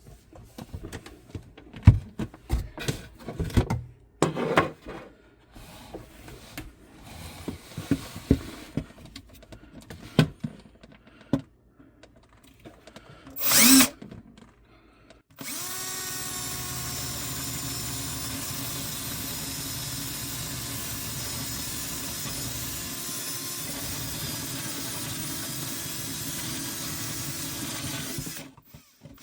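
Knocks and clatter of tools being handled, then a power drill running steadily for about thirteen seconds with a constant whine, boring a hole through a cabinet for a PEX water line.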